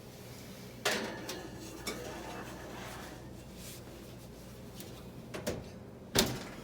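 Kitchen clatter as a dish of soup is put into the oven: a sharp knock about a second in, a few lighter clinks and knocks, and the loudest knock near the end.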